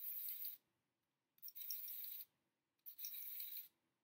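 Small plastic wind-up monkey toy's clockwork mechanism whirring and rattling in three short spurts, each under a second long, stopping dead in between.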